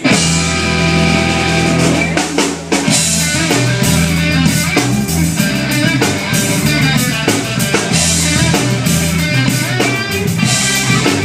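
Live reggae band kicking in all at once and playing a song's instrumental intro on drum kit and guitar, with a steady beat.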